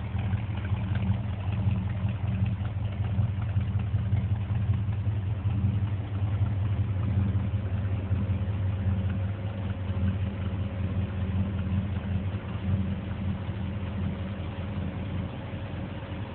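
Car engine running steadily with a low, even hum, a faint higher whine joining about six seconds in.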